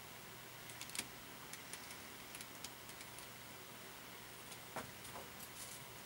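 Faint, scattered light clicks and rustles from a wool coat on a dress form being handled and turned, with the sharpest click about a second in.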